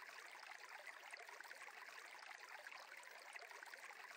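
Faint, steady trickling of a flowing stream.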